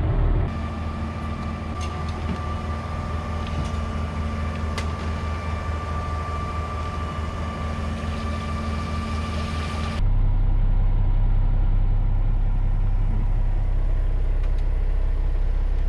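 Concrete pump truck's engine running steadily. About ten seconds in the sound cuts abruptly to a louder, deeper engine sound.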